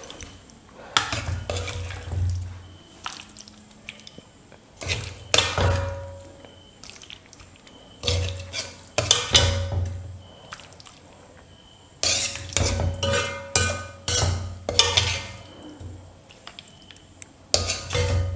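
A spoon scraping and clinking against a wok as chicken curry is spooned out of it onto a serving plate. The strokes come in bunches every few seconds, some leaving a short metallic ring.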